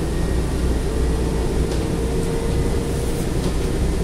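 Road and engine noise of a moving vehicle: a steady low rumble with a faint constant hum.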